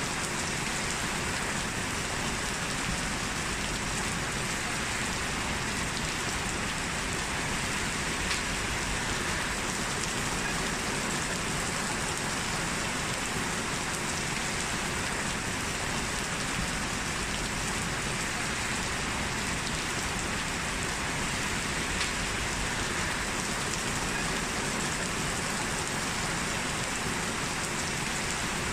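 Steady rain falling on surfaces, an even dense hiss with a few faint drop ticks.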